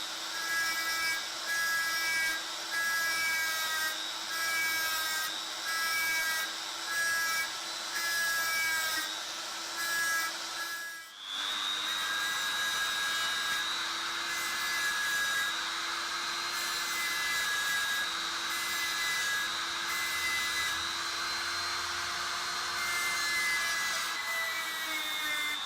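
Straight grinder with a stripping wheel running at a steady high whine, pressed against sheet metal again and again to strip rust and zinc coating. About 11 seconds in it is switched off briefly and spun back up.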